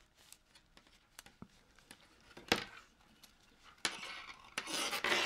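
Circular knitting needles clicking and tapping together as stitches are knitted, a scatter of light ticks with one sharper click about halfway through and a couple of longer scraping sounds near the end.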